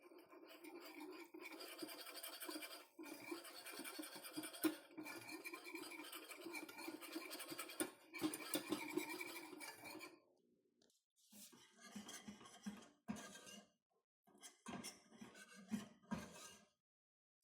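Scraping in food preparation: about ten seconds of continuous rasping, then a short pause and several shorter scraping strokes.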